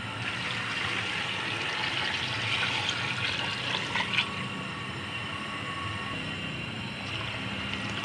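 Water poured from a pot onto lumps of jaggery in a steel pan, splashing steadily. It is loudest for the first four seconds or so, then goes on more softly as the pan fills.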